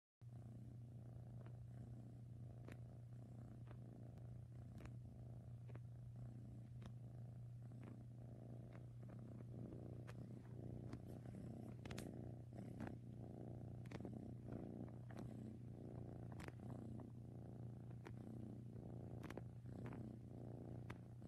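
Domestic cat purring close to the microphone: a steady low rumble, with faint scattered clicks over it.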